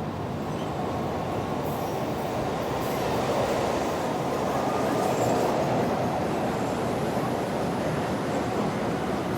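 Subway train running, a steady dense rumble that swells a little in the middle.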